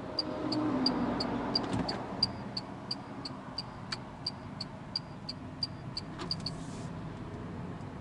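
Turn-signal indicator ticking evenly, about three ticks a second, and stopping about six and a half seconds in. Under it, the steady hush of tyre and road noise inside the cabin of a Renault Zoe electric car.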